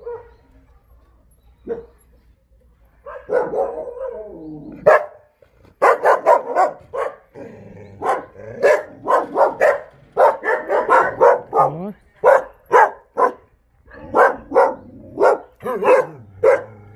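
Jindo dogs in kennel pens: a wavering call about three seconds in, then rapid, continuous barking that carries on to the end.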